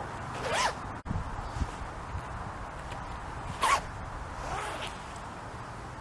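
Metal zip of a black zip-up jacket being run up and down in short quick strokes: one about half a second in, the loudest just before four seconds in, and a fainter one about a second after that.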